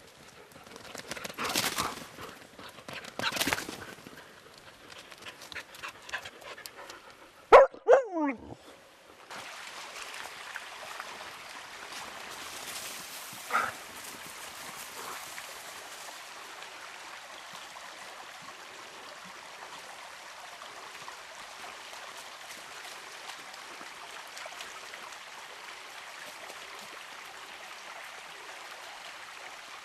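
A dog panting and moving about, with a short loud cry that falls in pitch about eight seconds in. From about nine seconds on, a steady rushing noise fills the background.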